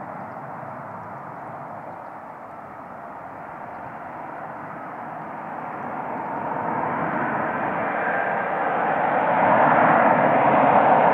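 Jet noise from an Airbus A380's four engines on final approach, a steady rush that grows much louder over the second half as the airliner comes closer, then holds at its loudest near the end.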